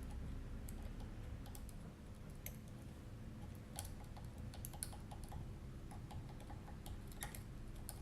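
Faint, irregular small metallic clicks of a pick and tension tool working the pins of a seven-pin tubular lock, with little clusters of clicks now and then.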